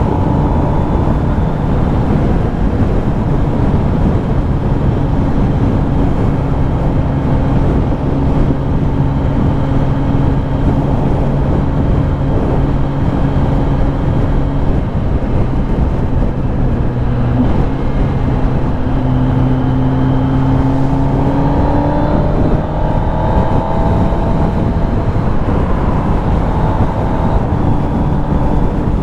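Kawasaki Ninja ZX-10R's inline-four engine running at steady cruising revs under a heavy rush of wind and road noise. About two-thirds of the way through, the revs climb briefly before settling again.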